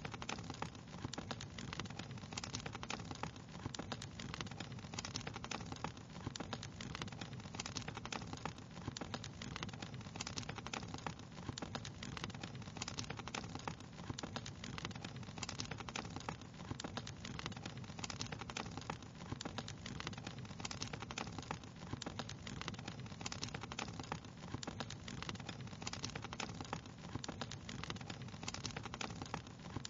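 Wood fire crackling steadily: a dense, unbroken run of small pops and snaps over a steady low rush.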